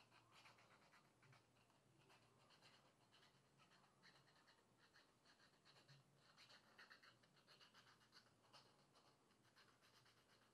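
Very faint scratching and rubbing: an uneven run of quick strokes, a few a second, over a faint low hum.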